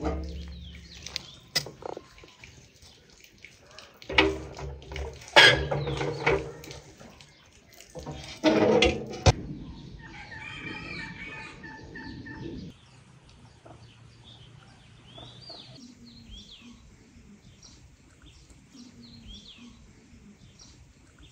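Several sharp knocks and clatters in the first half, then domestic chickens clucking and calling, with small birds chirping faintly near the end.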